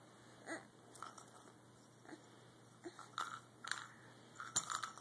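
Baby mouthing and chewing a plastic teething toy: faint scattered clicks and crackles, thickest in the second half, with one short baby vocal sound about half a second in.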